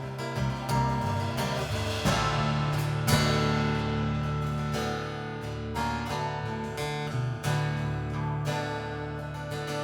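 A band playing an instrumental passage of a song without vocals, led by strummed acoustic guitar over sustained low notes.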